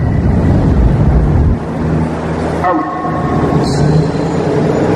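Low rumble of road traffic under a spirit box app's sweep of choppy static and broken radio-like tones, played at full volume through a speaker. About three seconds in, a cluster of tones slides down and then holds.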